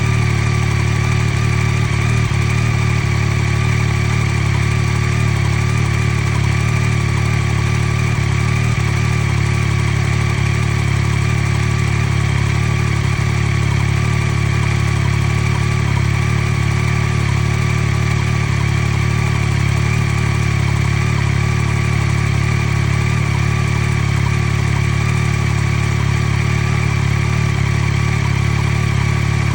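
2023 Yamaha XSR900's 890 cc inline-three engine idling steadily after a cold start, with a ticking noise whose normality the owner questions.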